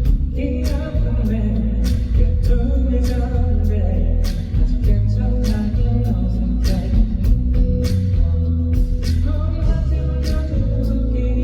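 Live pop-rock ballad with a steady drum beat and heavy bass under a male lead vocal, which drops out for a few seconds in the middle.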